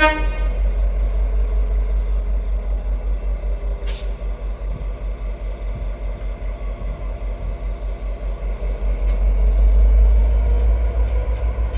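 N Class diesel-electric locomotive's engine running with a deep, rapidly pulsing throb that grows louder about eight seconds in as the locomotive takes power for a test move. A short hiss of released air about four seconds in.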